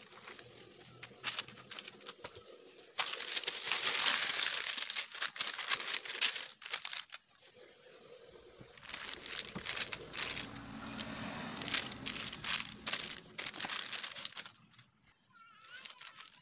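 Plastic cling film and baking paper crinkling and rustling as hands unwrap and handle tart dough, in two loud stretches.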